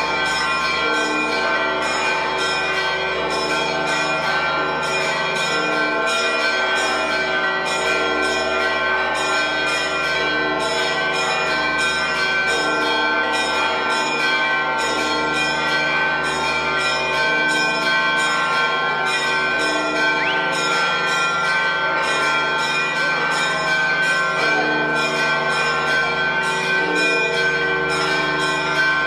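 Church bells of the Church of the Holy Sepulchre pealing without pause, many strokes in quick succession over the ringing of the bells, in celebration of the Holy Fire.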